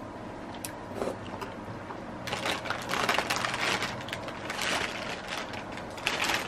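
Crunching and crackling of crisp, freshly fried Korean vegetable pancake (buchimgae) being chewed, a dense crunching that starts about two seconds in, with a few light clicks before it.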